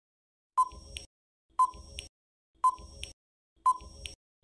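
Quiz countdown timer sound effect: a short ticking beep with a brief ringing tone, once a second, four times, counting down the time left to answer.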